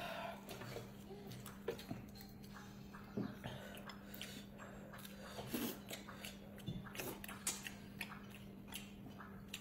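Eating sounds: chewing and slurping of noodles and broth, with scattered short clicks of chopsticks against bowls, over a faint steady hum.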